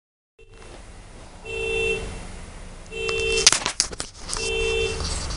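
Car alarm sounding the car's horn in short honks, about one every second and a half, four times. A brief clatter of knocks about three and a half seconds in.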